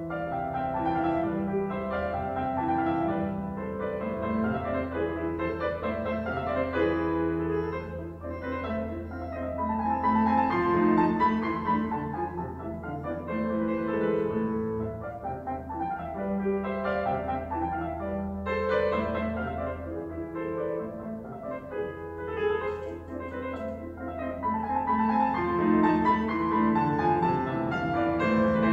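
Concert grand piano played solo: a classical piece of chords and running notes, swelling louder about ten seconds in and again near the end.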